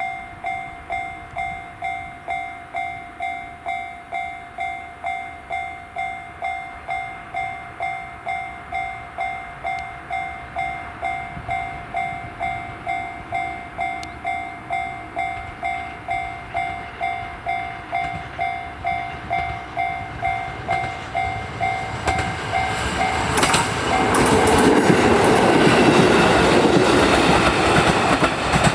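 Level-crossing warning bell ringing its repeated electronic tone about twice a second, stopping as the train arrives. A JR Kyushu KiHa 125 diesel railcar then passes the crossing loudly, its wheels clacking over the rail joints.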